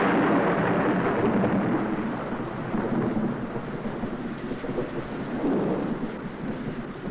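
Thunder: a long rumbling roll that slowly fades away.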